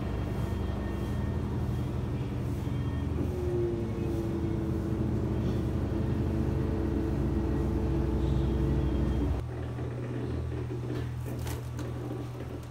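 Hisense WTJA802T 8 kg top-loading washing machine on its spin cycle: the motor hums and the drum rumbles as it spins the clothes fast. About nine seconds in, the deep rumble stops abruptly and a lighter steady hum carries on.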